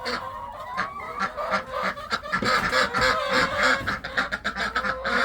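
Farm poultry calling over and over, many short calls in quick succession.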